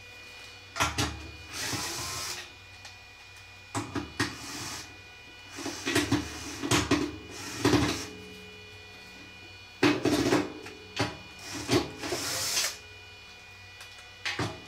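Cordless drill-driver run in several short bursts, backing screws out of the sheet-metal blower housing of a vintage Maytag dryer, with clicks and metal clinks between the bursts.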